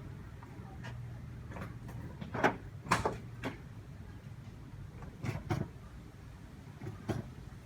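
A string of sharp clicks and knocks from someone handling a car, such as doors and fittings, just before the engine is started. The strongest two come about two and a half and three seconds in, over a faint low steady hum.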